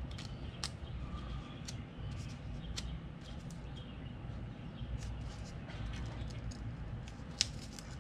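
Scattered light clicks and rustles of fingers handling a GoPro Hero13 Black camera and peeling at its white protective wrap, over a low steady background rumble.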